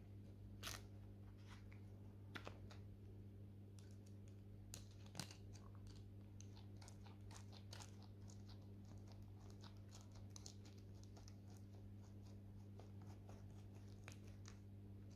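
Near silence: a low steady hum with many faint, scattered clicks and crackles.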